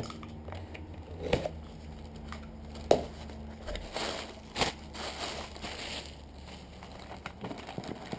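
Cardboard shipping box being opened by hand: tape slit and cardboard flaps pulled back with a few sharp knocks, the loudest about three seconds in, then plastic packing crinkling as it is pressed and pulled out.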